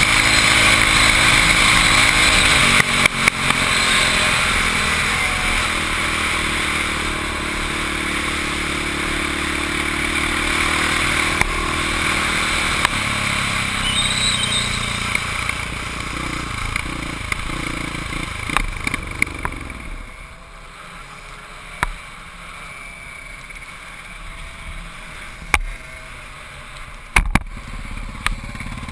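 Motorcycle engine running at speed with wind rushing over the microphone, the engine pitch sliding down as the bike slows. About two-thirds of the way in it drops to a much quieter low-speed run, with a few sharp clicks and knocks.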